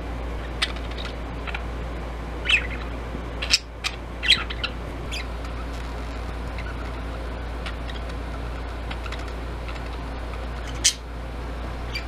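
Budgerigar giving short, scattered chirps: a quick cluster of several about three to five seconds in and one more near the end, over a steady low background hum.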